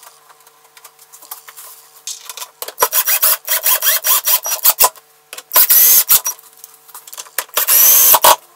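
Cordless drill/driver driving screws into a melamine cabinet board, its motor whining in several short bursts as the screws grind into the board.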